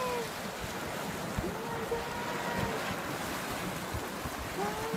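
Boiling sulfur mud spring bubbling and steaming with a steady rushing hiss and scattered low plops.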